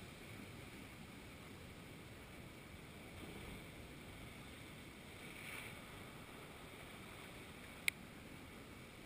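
Faint, steady wash of surf breaking on rocks, swelling a little twice. A single sharp click near the end.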